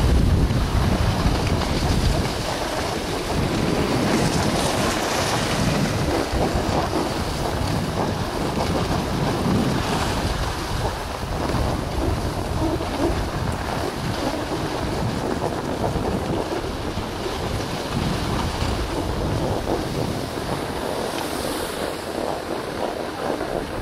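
Wind rushing over the microphone of a camera carried by a skier moving downhill, mixed with skis sliding over packed snow. A steady, noisy rush, with a heavier low rumble in the first couple of seconds.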